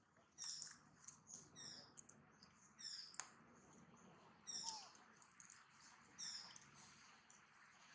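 Faint, high-pitched animal squeaks, each falling in pitch, repeated five or so times about every second or two.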